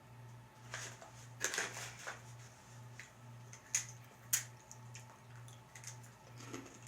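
Short, sharp crackles and crinkles from a packet of snack mix being handled, with dry puffs crunching, a few separate bursts over a faint low pulsing hum.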